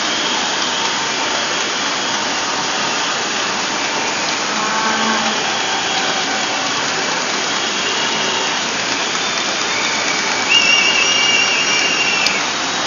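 Steady hiss of a large crowd out in the rain. A high, wavering whistle sounds for about two seconds near the end.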